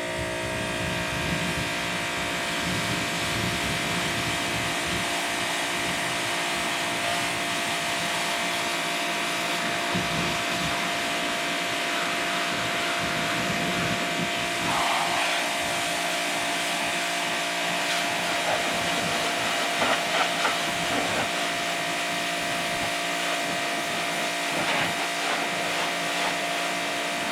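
Ryobi electric pressure washer running and spraying water, its motor giving a steady whine over the hiss of the jet, with a few brief louder surges partway through.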